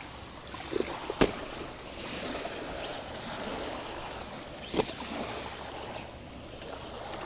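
Gentle lapping of water at the shore as a steady background, with two sharp clicks, one about a second in and another some three and a half seconds later.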